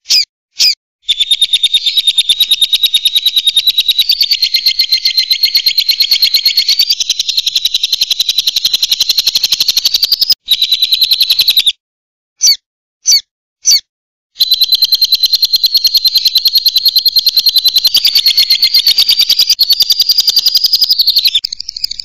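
Lovebird giving its long, very rapid chattering trill, known to keepers as 'ngekek panjang'. A few short separate chirps open it, then a long unbroken run of chatter. A pause of a few seconds holds three short chirps, and a second long run follows that tails off near the end.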